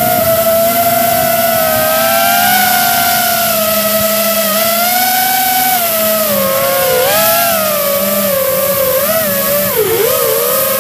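Whine of a camera drone's electric motors and propellers heard from on board: several close tones wavering in pitch as the throttle changes, dipping sharply about ten seconds in, over wind hiss.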